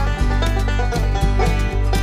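Background music: an upbeat country or bluegrass-style tune with plucked strings and a steady beat.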